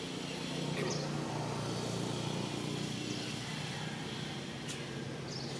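Steady outdoor background noise with a low drone like distant engine traffic. A few brief high chirps sweep downward, one about a second in and two near the end.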